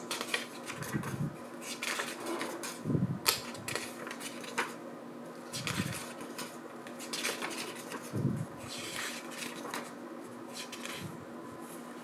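Paper pages of a booklet turned one after another by hand: crisp rustling and small clicks, with a soft flap about every two to three seconds as each page falls over.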